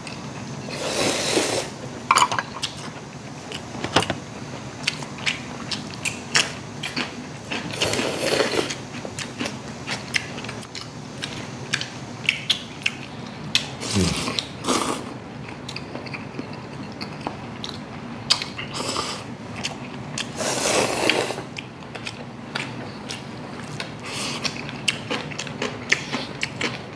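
People slurping and chewing cold naengmyeon noodles, with chopsticks clicking and tapping against large stainless steel bowls; a few longer slurps stand out among the many small clicks.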